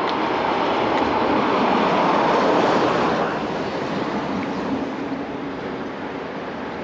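A vehicle passing on a wet road: tyre hiss and spray swell to a peak about two and a half seconds in, then fade away.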